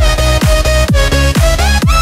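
Electronic dance music: a steady four-on-the-floor kick drum about twice a second, with synth lead notes that glide in pitch.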